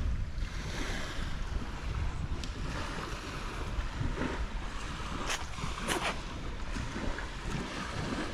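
Sea waves washing on the shore with wind buffeting the microphone, a steady rush with a deep rumble, and a few faint sharp ticks in the second half.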